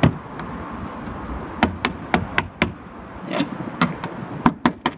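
A tool knocking and tapping on the rusted steel of a Triumph Dolomite's rear wheel arch: about a dozen sharp, irregular knocks that come quicker near the end.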